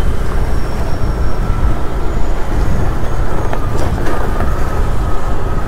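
Vehicle and road-traffic noise: engines running with a steady, loud low rumble.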